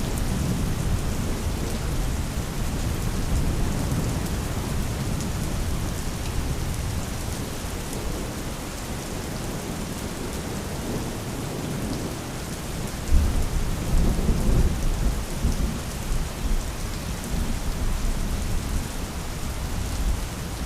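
Steady rain falling, with distant thunder rumbling low underneath; a louder roll of thunder breaks in about two-thirds of the way through and rumbles on for several seconds.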